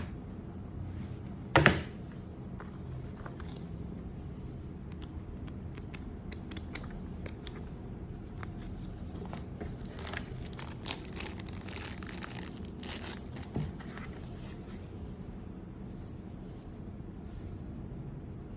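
Packaging being handled during an unboxing: rustling and crinkling with scattered clicks, and a sharp clack about a second and a half in, over a steady low hum.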